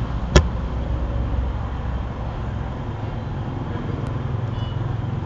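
A single sharp computer-mouse click about half a second in, over a steady low rumble.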